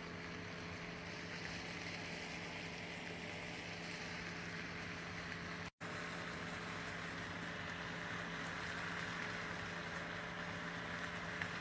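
Food frying in a pan, a steady sizzling hiss that swells and eases, over a constant low hum, broken once by a brief silent cut about halfway through.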